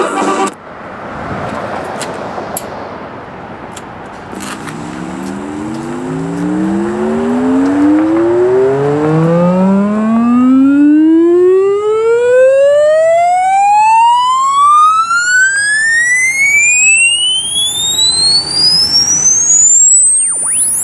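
Music cuts off, and after a few seconds of tape hiss and a couple of clicks a test-tone cassette plays through a Realistic SCR-3 boombox's speakers. The tone is a frequency sweep that climbs steadily from a low hum to a high whistle over about fifteen seconds, with fainter overtones climbing alongside it, and ends near the close.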